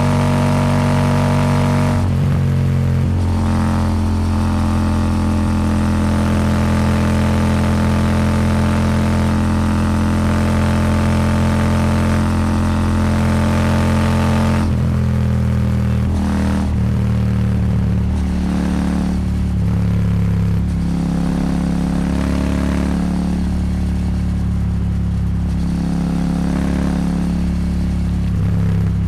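Royal Enfield Super Meteor 650's 648 cc parallel-twin engine running under way through an aftermarket slip-on exhaust. The note holds steady for the first half, with one change in pitch about two seconds in; in the second half the pitch shifts up and down every second or two.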